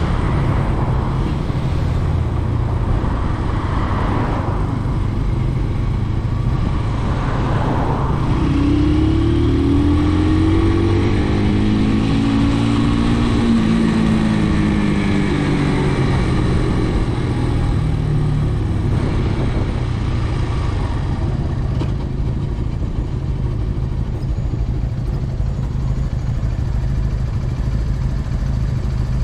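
Motorcycle engine running at road speed over a steady rushing noise. Its pitch climbs and then falls back between about 8 and 18 seconds in.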